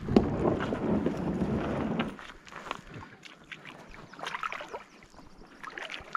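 A loud, rough scraping rush for about two seconds, then scattered light knocks and clicks.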